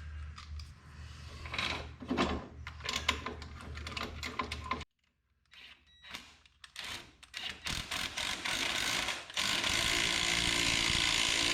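Socket wrench ratcheting in quick clicks as lug bolts are threaded into a wheel hub, broken by a sudden cut partway through. A steady, louder mechanical whir runs for about the last two seconds.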